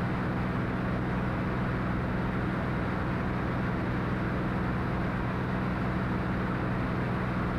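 Cirrus SR22T's turbocharged six-cylinder Continental engine and propeller droning steadily in flight, with a constant low hum and a hiss of airflow, heard inside the cabin.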